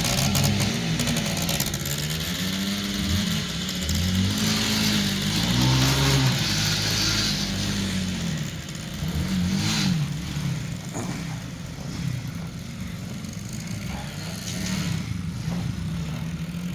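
An engine revved up and down repeatedly, its pitch rising and falling every second or two, then running at a steadier, lower note in the second half.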